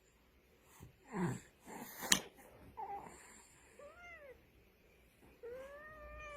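A cat meowing twice, each meow a drawn-out call that rises and falls in pitch, the second one longer, in the second half. Before them come some noisy sounds and a sharp click about two seconds in, the loudest moment.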